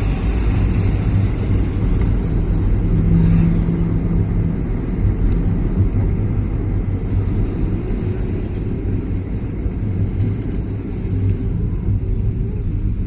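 Motor vehicle driving along a road: a steady low rumble of engine and road noise.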